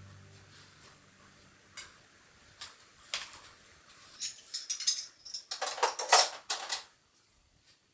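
Kitchen dishes and utensils clinking and clattering: a few single clinks, then a busier run of knocks and scrapes from about four to seven seconds in.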